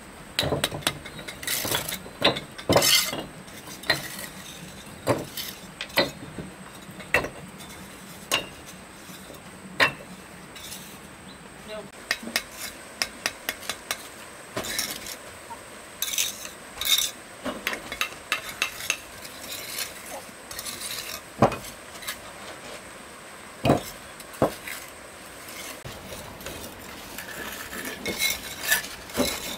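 Irregular clinks and knocks of utensils against pots and dishes, sharp and unevenly spaced, over a low steady background.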